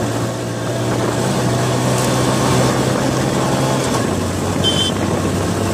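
Engine of the vehicle carrying the camera, running steadily behind galloping racehorses over a rushing noise; its note drops about four seconds in as it eases off.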